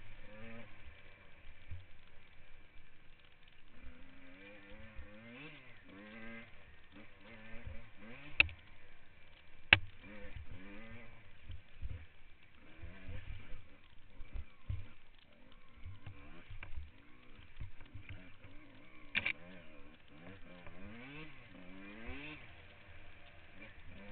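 Dirt bike engine revving up and dropping back over and over as it rides a rough trail. There are sharp knocks, two close together about a third of the way in and another past the middle.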